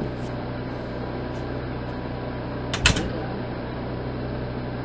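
Steady low hum with a hiss, like a computer fan or room hum. A faint click comes just after the start, and a sharp, louder pair of clicks about three seconds in.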